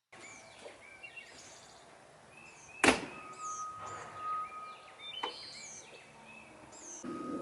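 Birds chirping with short, repeated calls, and a single sharp knock about three seconds in. A fainter click comes about five seconds in, and a thin steady high tone comes and goes.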